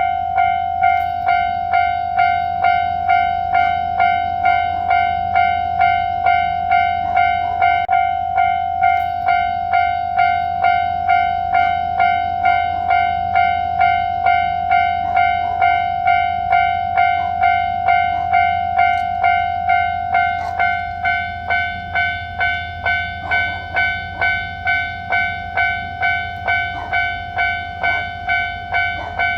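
Japanese level-crossing warning bell ringing its steady 'kan-kan' alarm, an even run of pitched strikes about three every two seconds, a little quieter from about two-thirds of the way through, over a steady low hum.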